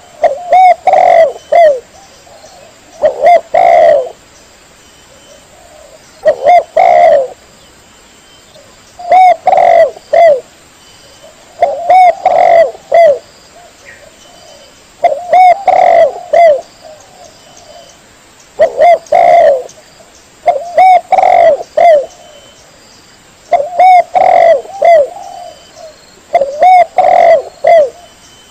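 Spotted dove (tekukur) cooing: loud phrases of a few coos each, repeated about every three seconds with short pauses between.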